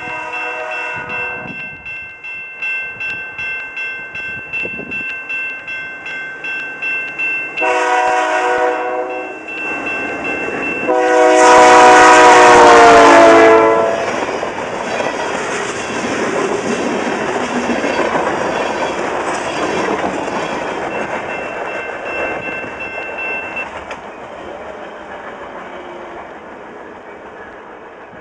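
Canadian Pacific freight train passing. The locomotive's air horn sounds three blasts, the last one long and loudest, its pitch dropping as the engine goes by. Then steel wheels clatter on the rails as the freight cars roll past, fading away.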